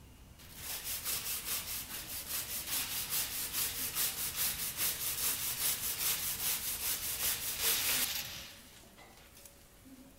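Rapid, even scraping or rubbing strokes, about five a second, starting about half a second in and stopping at around eight seconds.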